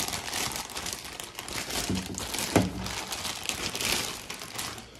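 Clear plastic packaging bag crinkling and rustling as it is handled and pulled open, with irregular crackles throughout.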